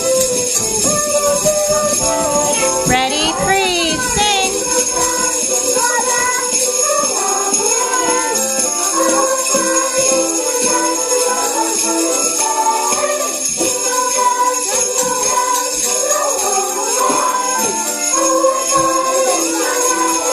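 Sleigh bells shaken steadily by a class of children, jingling along to music.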